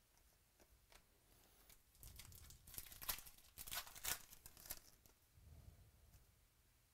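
Foil trading-card pack wrapper being torn open and crinkled by hand. A run of crackling tears starts about two seconds in and lasts about three seconds.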